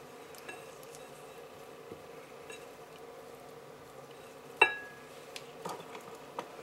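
Scattered light clicks of a kitchen utensil against dishware, with one sharp, ringing clink a little past halfway and a few softer taps after it, over a steady low hum.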